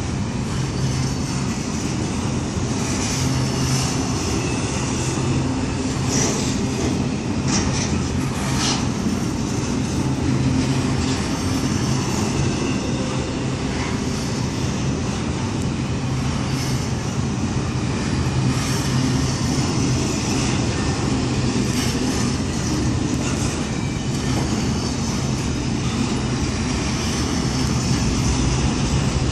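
Double-stack intermodal freight cars rolling past close by: a steady rumble and clatter of steel wheels on rail, with a few brief high-pitched wheel squeals several seconds in.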